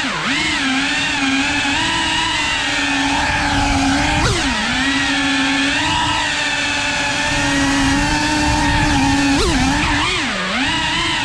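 Small 3.5-inch cinewhoop FPV quadcopter's brushless motors and propellers whining steadily, heard from on board. The pitch drops sharply and climbs back about four seconds in and twice more near the end as the throttle is chopped and punched.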